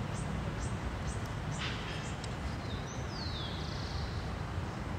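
Outdoor ambience: a steady low rumble under a few faint, short, high bird chirps in the first two seconds, then a bird's falling call about three seconds in.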